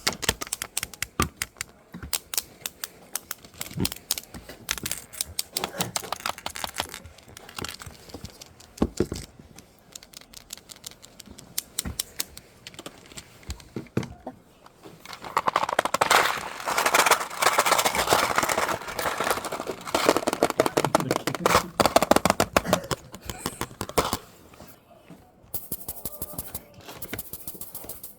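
Close-miked ASMR tapping and scratching: rapid, irregular clicks, with a busier, louder stretch a little past the middle.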